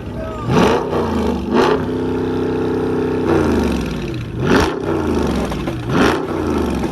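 A car engine being revved hard several times in quick blips. About two seconds in it is held at high revs for over a second, then it winds down and is blipped twice more.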